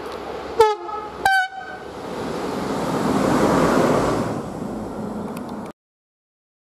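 Electric locomotive's horn giving two short blasts as a greeting, followed by the locomotive passing with rail and running noise that swells and then eases. The sound cuts off suddenly near the end.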